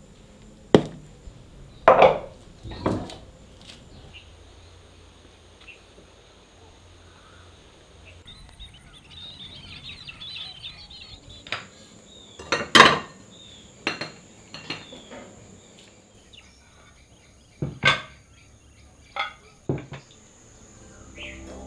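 Kitchen utensils and pots knocking and clinking, about ten separate sharp strikes spaced irregularly. Behind them is a faint steady high tone and, a little before the middle, a brief spell of faint chirping.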